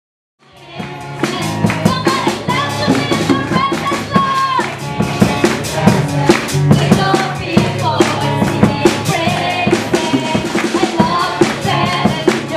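Church praise music: a drum kit keeping a steady beat under a congregation singing, fading in from silence about half a second in.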